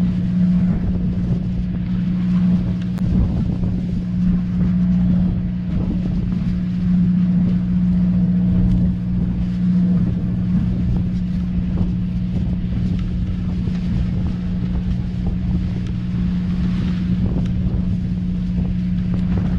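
A boat's engine running with a steady low hum, with wind buffeting the microphone.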